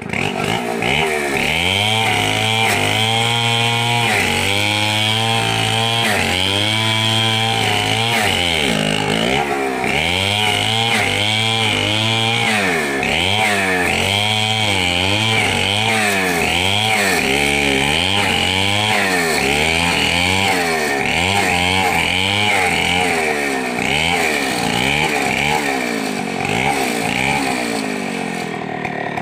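Two-stroke chainsaw cutting along a felled log, its engine speed rising and falling over and over as the chain bites into the wood and frees again, the swings coming faster in the second half.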